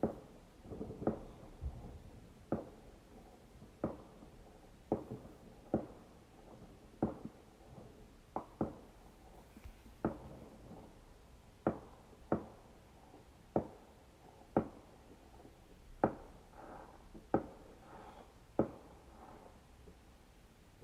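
Fireworks exploding as a string of separate bangs, about one a second, each dying away in a short echo.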